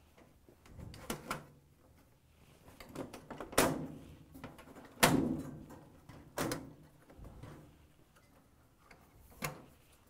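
Microwave's metal control panel being worked loose and tipped forward: a string of separate sharp clicks and knocks of metal, the two loudest about three and a half and five seconds in.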